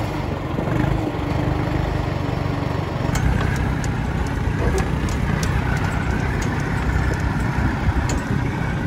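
Tractor engine running steadily while towing a boat on its trailer over beach sand. From about three seconds in, irregular sharp clicks and knocks rattle on top of it.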